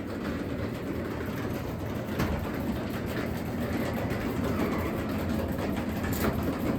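Craftsman 3/4 hp DC belt-drive garage door opener raising the door: a steady rolling rumble and rattle from the door, which is louder than the opener itself. The sound stops abruptly at the end as the door reaches the top.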